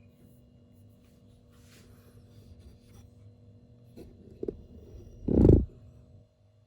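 Faint rustling and a couple of light clicks, then one dull, low thump about five seconds in, over a steady low hum.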